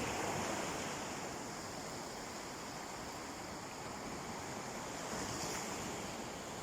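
Sea waves washing onto a beach: a steady surf wash, a little louder at the start.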